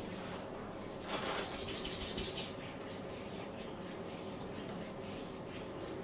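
Hands rubbing over skin in a massage: soft, irregular strokes, with a second and a half of fast, brisk rubbing about a second in.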